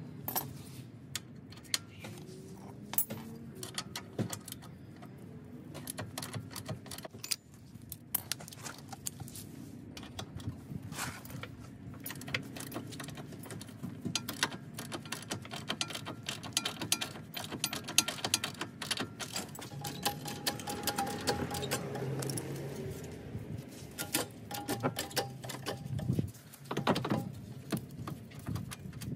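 Irregular metallic clinking and rattling of hand tools and loose front-suspension hardware on a car's wheel hub being worked by hand, with many sharp clicks that come thicker in the second half.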